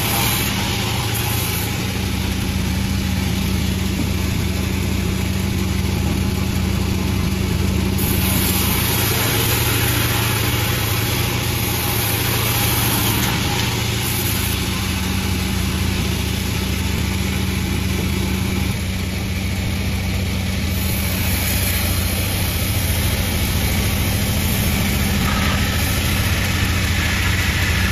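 Panda36 sawmill machine running steadily, its motor humming at an even pitch. A higher hiss over it grows louder about eight seconds in and again about twenty-one seconds in.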